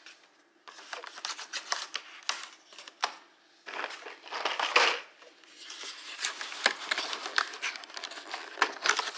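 Perforated cardboard doors of a dog-biscuit advent calendar being pushed and torn open: irregular crinkling and tearing of card in quick runs, loudest about halfway through.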